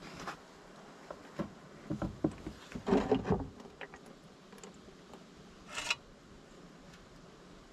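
A series of sharp knocks and clatters of hard parts being handled, loudest in a dense cluster about three seconds in, followed near six seconds by a short hiss.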